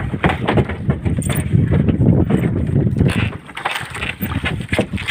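Rustling, scraping handling noise of a phone's microphone rubbing against a shirt, crackling with many small knocks, heaviest for the first three seconds and lighter after.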